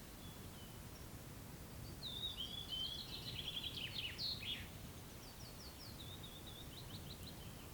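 A songbird singing: a loud phrase of quick chirps and short falling notes about two seconds in, then softer repeated notes, over a low steady outdoor rumble.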